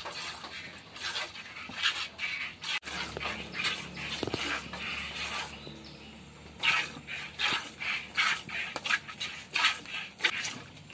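Milk squirting from a cow's teats into a plastic bucket during hand milking: a quick, even run of short hissing squirts, two or three a second.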